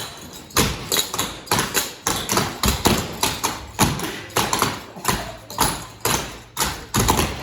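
Young dancers' step routine on chairs: a run of sharp thumps and taps at about two to three a second, some in quick pairs, made by feet and hands hitting the floor, chairs and body in rhythm.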